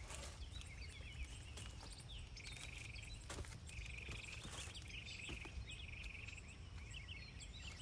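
Outdoor ambience: a high buzzy trill repeated three times, each about half a second to a second long, with scattered short chirps, over a low rumble, and a couple of sharp clicks.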